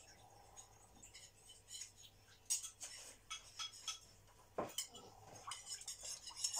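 Metal spoon and dishes clinking: scattered light clinks and taps that get busier from about two and a half seconds in, with a duller knock a little past halfway.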